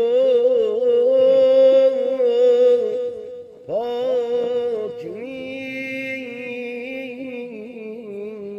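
A man singing in long held notes that waver in pitch, in two phrases with a short breath between them about three and a half seconds in; the second phrase is quieter.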